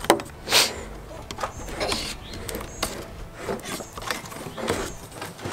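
Screwdriver prying the lid off a metal gallon paint can, working around the rim: a run of irregular clicks and scrapes, with a louder scrape about half a second in.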